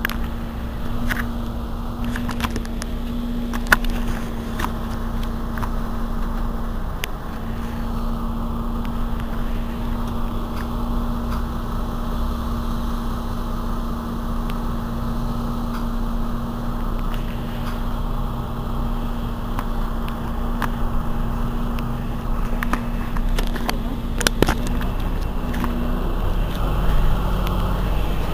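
Mercedes-Benz Citaro C2 city bus standing with its engine idling: a steady low rumble with a steady hum on top that drops out briefly about seven seconds in and stops near the end, and a few faint clicks.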